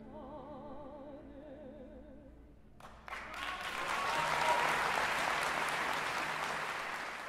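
A soft held orchestral chord with wavering string vibrato fades, then about three seconds in an audience breaks into applause that swells and carries on.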